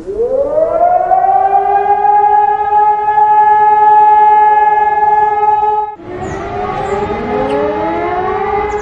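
Siren winding up, rising in pitch over about a second and a half, then holding one steady tone. About six seconds in it cuts off sharply, and another siren recording starts, with several rising tones overlapping over a steady tone and background noise.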